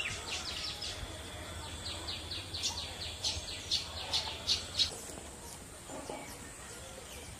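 Weaverbird chattering: a run of quick, dry chirps that grows to its loudest about three to five seconds in, then fades away.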